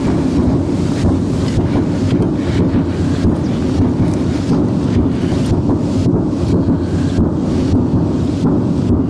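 Steady, loud low rumble with an irregular hiss over it.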